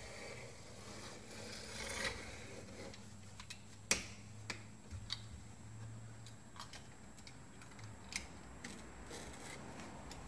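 A knife cutting and scraping along the rubber seal of a bus door window, with scattered small clicks and one sharp click about four seconds in. The rubber is hard going, which the owner puts down to stiff rubber or glue in the seal.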